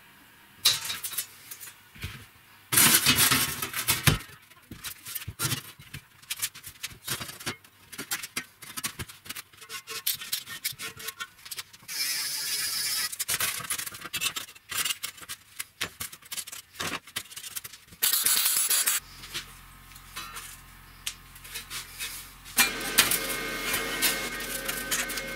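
Metalworking sounds: a run of sharp metal knocks and clicks, broken by short bursts of an angle grinder's disc grinding steel.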